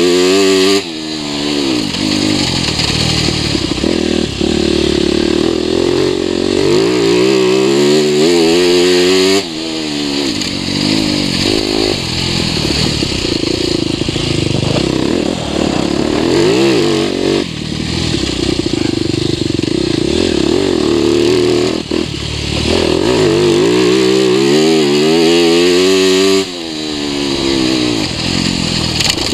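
TM 300 EN Fi enduro motorcycle engine heard from on board, revving hard and easing off over and over as it is ridden along a dirt track; its pitch climbs steeply and then drops abruptly several times, most sharply three times as the throttle is shut.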